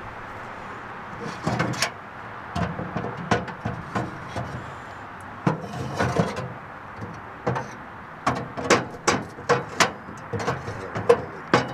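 Metal cooking grates of a steel smoker cabinet clanking and scraping on their rails as gloved hands slide them out and push them back in. A string of sharp clacks starts about a second and a half in and comes thicker near the end, over steady background noise.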